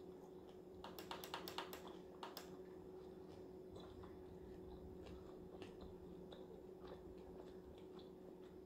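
Faint clicking of a laptop keyboard: a quick run of clicks between about one and two and a half seconds in, then scattered single clicks, over a steady low hum.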